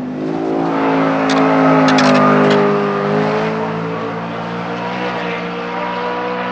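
BMW M3 E92 race car's V8 engine accelerating hard past, its note climbing in pitch to a peak about two seconds in, with a few sharp cracks at its loudest. The note then drops slightly and holds steady as the car pulls away down the straight.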